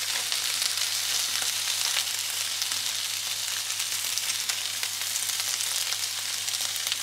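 Plant-based bacon rashers sizzling in a frying pan in a little coconut oil: a steady frying hiss with many small scattered pops.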